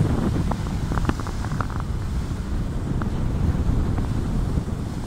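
Wind buffeting the microphone over the wash of sea waves breaking against rocky shore boulders.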